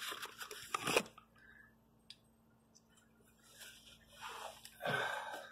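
Rustling and bumping of a camera being handled and set in place, then a lull with a single sharp click, and faint rustling of hands working near the end. A faint steady hum lies underneath.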